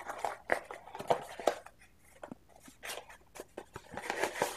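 Cardboard packaging being handled and unfolded by hand: scattered light taps and scrapes, with a longer stretch of rustling near the end.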